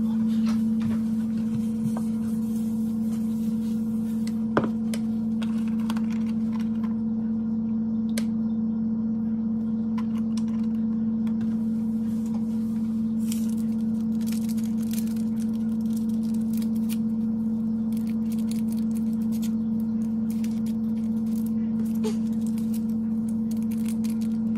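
A steady low hum, with a single tone and its overtone holding level throughout, under a few faint clicks and knocks; one sharper click comes about four and a half seconds in.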